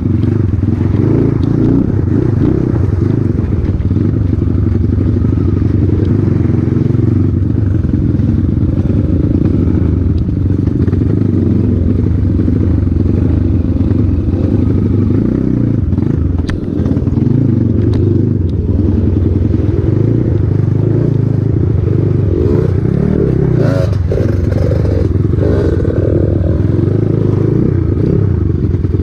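Off-road motorcycle engine running steadily as the bike is ridden, with a few short knocks about three quarters of the way through.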